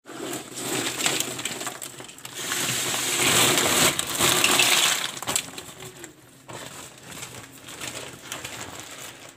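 A plastic carry bag rustling and crinkling as live green mussels are tipped out of it, their shells clattering and clicking against each other. The loudest rustling falls in the middle, then the shells go on clicking more quietly after about six seconds.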